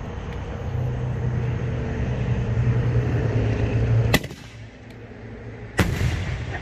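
Consumer aerial firework shell fired from its mortar tube: two sharp bangs about a second and a half apart, about four seconds in the lift charge launching the shell, then the shell bursting overhead with a short echo. A low steady hum runs underneath before the launch.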